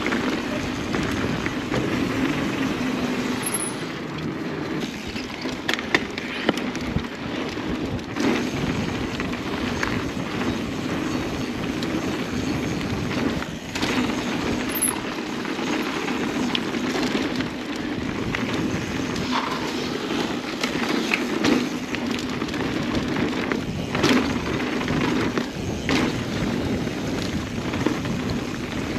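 Mountain bike riding fast down a dirt singletrack trail: steady tyre and rolling noise, with the bike clattering sharply over bumps many times.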